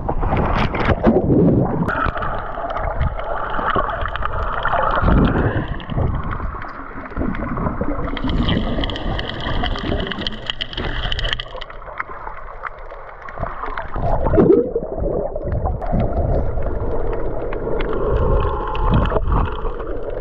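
Water gurgling and bubbling around a camera dipping below the surface, then muffled underwater rushing and bubbling as a snorkeler dives to the seabed.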